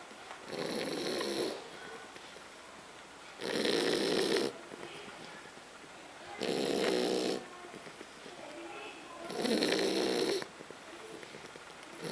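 French bulldog snoring in its sleep, a common trait of this flat-faced breed. Loud snores come about every three seconds, each lasting about a second: four full snores, with the start of a fifth at the very end. Quieter snuffling breaths fall between them.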